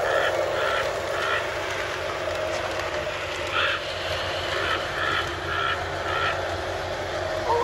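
Lionel LionChief O-gauge RS-3 diesel model train running on plastic FasTrack, with a steady hum and short runs of evenly spaced clicks as the wheels pass over the track joints.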